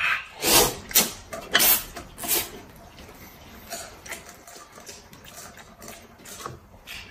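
A man slurping up thick noodles with meat sauce: four loud slurps in the first two and a half seconds, then a few fainter slurps and mouth noises.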